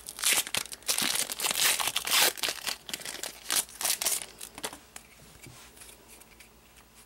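Foil wrapper of a trading card pack being torn open and crinkled by hand: dense crackling for about four seconds, then dying down to faint rustles and ticks as the cards are handled.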